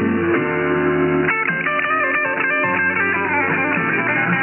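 Guitar music broadcast by a shortwave pirate station, received on 6955 kHz in upper sideband and sounding narrow, with nothing above about 3 kHz. Several notes glide in pitch.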